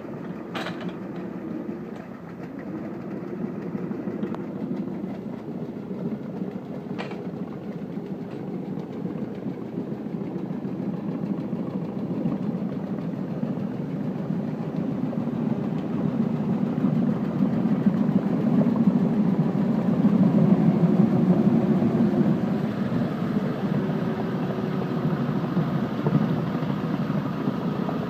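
Truxor amphibious vehicle's engine running steadily, growing louder around two-thirds of the way through, with a couple of sharp clicks near the start.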